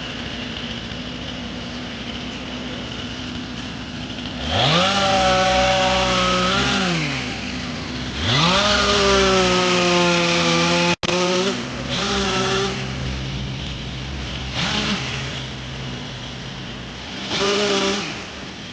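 Chainsaw idling, then revved up to full speed twice for two to three seconds each, its pitch sinking slightly while held high the second time. After a sudden break, three short blips of throttle follow.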